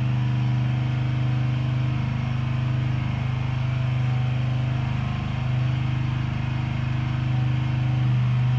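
A steady low hum of a running motor or engine, unchanging in pitch and level.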